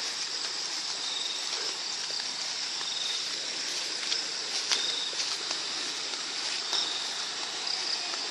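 Shallow stream running over rocks: a steady rush of water, with short high chirps repeating every couple of seconds.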